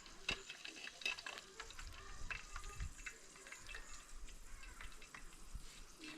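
Chicken pieces frying in a pan with a light crackle, with scattered clicks and scrapes as they are stirred and turned.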